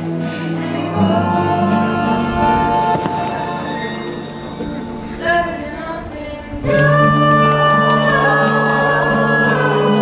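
Background music: a song with singing over sustained chords, swelling louder about two-thirds of the way through.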